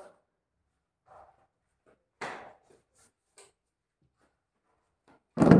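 A few short cloth rustles and light knocks from household handling, then a loud bump near the end as the phone recording it is grabbed and handled.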